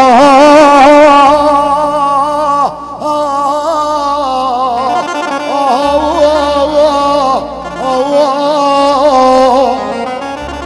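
Live Iraqi rural music: a male singer's long, wavering held notes in a mawwal over electronic keyboard accompaniment. The music grows quieter near the end.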